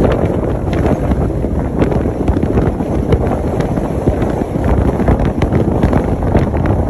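Wind buffeting the microphone of a phone held out of a moving car, over steady road noise from the car.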